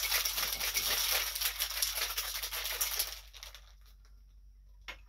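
Ice rattling fast and hard in a metal cocktail shaker being shaken, stopping suddenly about three seconds in. A single light click near the end.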